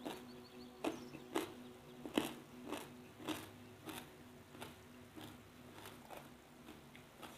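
A person chewing crunchy raw food with the mouth closed: a run of crisp crunches about every half second, loudest around two seconds in and growing fainter through the second half.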